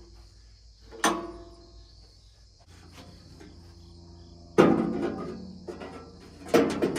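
Metal clanks on a band sawmill while its band blade is changed: a knock about a second in, a louder clank with a brief metallic ring at about four and a half seconds, and a quick run of rattling knocks near the end.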